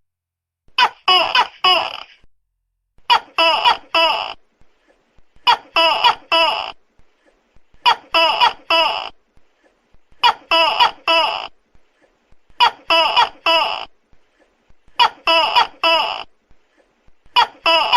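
Tokay gecko calling loudly: eight bursts of three or four short, clipped syllables, repeating evenly about every two and a half seconds.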